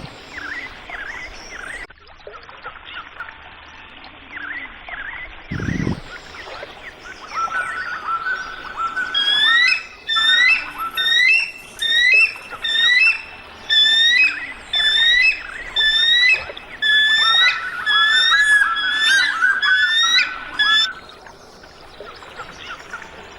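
Birds calling: scattered chirps, then from about a third of the way in a dense run of rapid, whistled notes in bursts about once a second, which stops shortly before the end. Two low thumps sound near the start and about a quarter of the way in.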